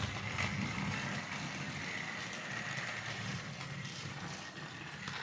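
Motorized Thomas & Friends Percy toy engine running on the set: a steady small-motor whir with a faint high whine.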